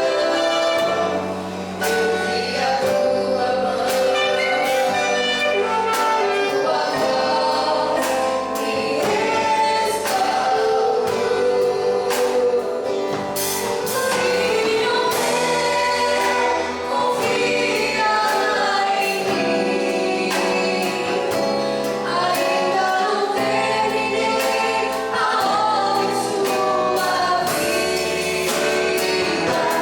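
Christian worship song: voices singing over band accompaniment with a steady beat.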